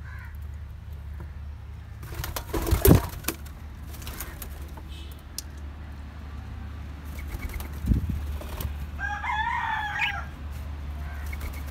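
Caged doves and budgerigars in an aviary: wing flutters and sharp knocks around two to three seconds in, then a single bird call lasting about a second near the end, over a steady low hum.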